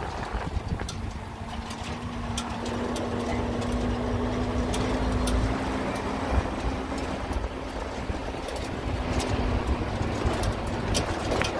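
A steady motor hum over a low rumble, with scattered clicks and knocks.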